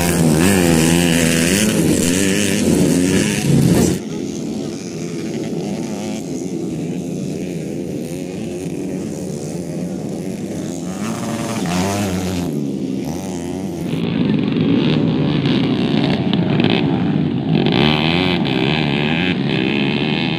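Racing motorcycle engines revving up and down as the bikes ride the dirt track. They are loud for the first few seconds, then fainter and farther off, and grow louder again in the second half.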